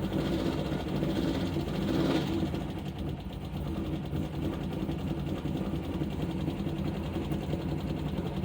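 2012 Chevrolet Caprice PPV's 6.0-litre LS V8 running with a rapid ticking noise, revved up about two seconds in and settling back down. The tick gets louder with RPM, and the owner places it on the driver's side, under the valve cover.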